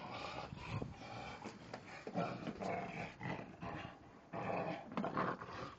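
Blue Staffordshire Bull Terrier growling in play, in a run of irregular rough bursts with short breaks between them.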